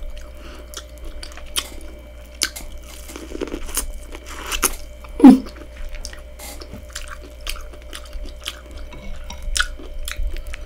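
Chewing and biting of a boiled corn cob, with many small crisp clicks and crunches of the kernels, and a brief falling 'mmm'-like voice sound about five seconds in.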